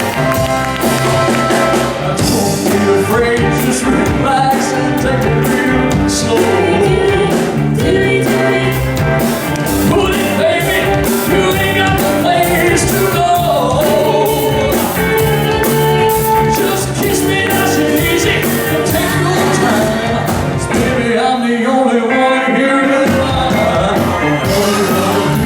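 Live rock-and-roll band playing with a singer over a steady drum beat; the bass drops out for a couple of seconds near the end.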